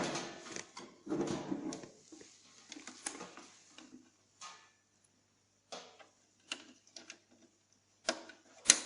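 Scattered small plastic clicks and handling rustle as an RJ11 cable is fitted into a receipt printer's cash-drawer port, with a sharp click near the end.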